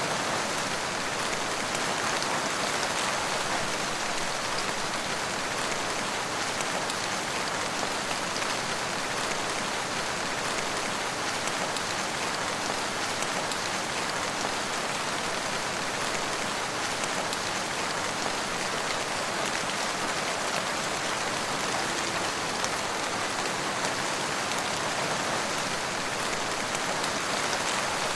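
Steady rain falling, a continuous even hiss with fine scattered drop patter and no thunder.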